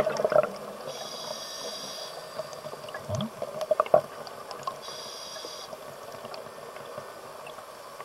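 Underwater sound of a diver's scuba breathing: a burst of exhaled bubbles dies away at the start, then a hissing inhalation through the regulator comes twice, about a second in and again around five seconds, with a few faint clicks in between.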